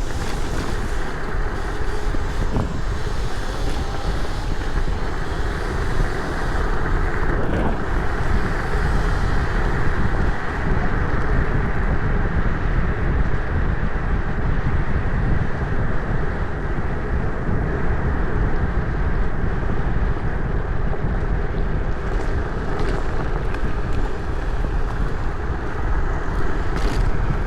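Wind buffeting the microphone of a chest-mounted camera on a moving electric scooter, over a steady rumble of the ride.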